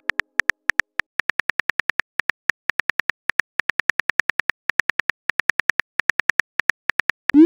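Phone keyboard tap clicks, about five or six short ticks a second, as a text message is typed out. Near the end comes a quick rising whoosh: the message-sent sound.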